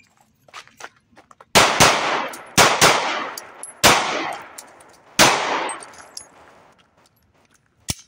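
Ruger Max-9 9mm micro-compact pistol fired six times: two quick pairs of shots, then two single shots about a second and a half apart, each ringing out after the crack. Faint clicks come before the first shot, and a single sharp click near the end.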